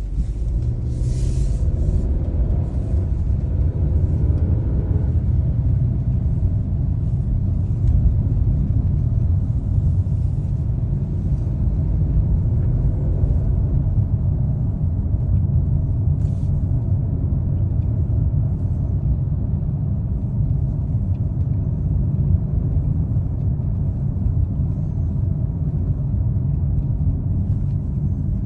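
Chery Tiggo 8 Pro Max being driven: a steady low rumble of road and drivetrain noise, with the engine note rising over the first few seconds as the car gathers speed.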